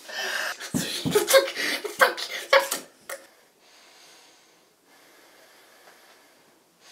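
A person retching and gasping over a toilet bowl, a string of harsh, irregular heaves for about three seconds, then only faint room tone.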